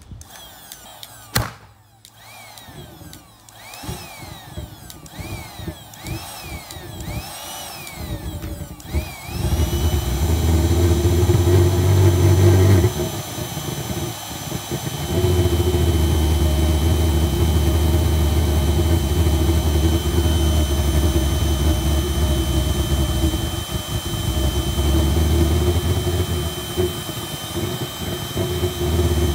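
A handheld electric blower is revved in short pulses into a homemade pulsejet's intake, its whine rising and falling about once a second. From about ten seconds in the blower is held on and the propane pulsejet catches with a loud low buzz. The buzz cuts out for a couple of seconds and then catches again.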